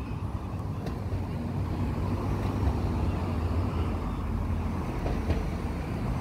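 Steady low outdoor rumble: wind on the microphone mixed with vehicle traffic noise.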